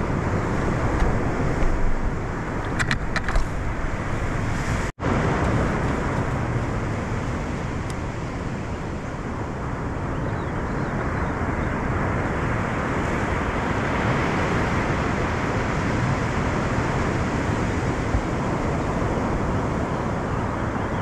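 Steady wash of surf breaking on the beach, mixed with wind. The sound cuts out for an instant about five seconds in.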